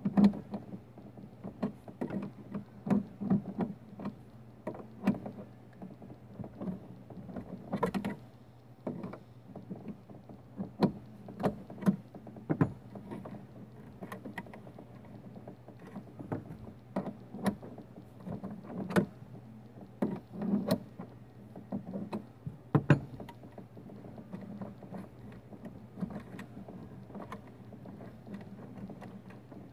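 Irregular clicks and knocks of a hand tool and plastic trim as the dashboard and instrument-cluster surround of a Dodge Neon SRT-4 are worked on, with a steady low hum underneath.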